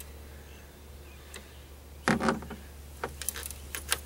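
Light clicks and taps of fishing tackle being handled, a hook on a snap clip, with one sharper knock about two seconds in and a cluster of quick clicks near the end, over a low steady hum.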